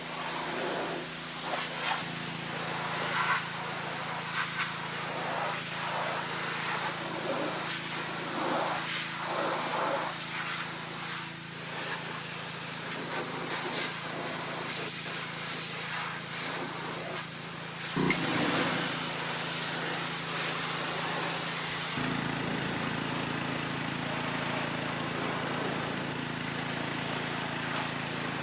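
A pressure washer jet blasting the rusty sheet metal inside a car body: a steady hiss of spray over a low, even hum, with splattering that flares as the jet sweeps across surfaces. There is a sudden louder blast about 18 seconds in.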